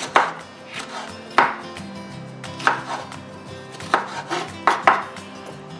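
Kitchen knife slicing small red sweet peppers on a wooden cutting board: about five separate strokes, each a short sharp knock of the blade through the pepper onto the board.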